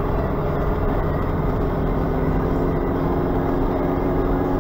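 Steady engine and tyre noise of a vehicle driving along at an even speed, heard from inside its cabin: a constant low hum under road rumble.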